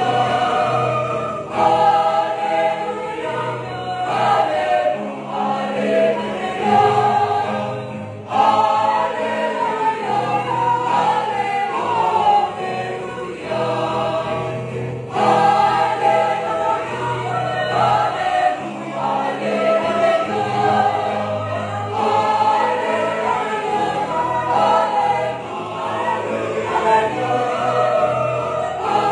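A church choir of mixed men's and women's voices singing a sacred song in parts, in phrases of several seconds with brief breaths between them.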